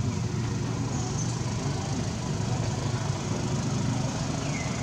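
An engine running steadily at idle nearby, a low, even hum.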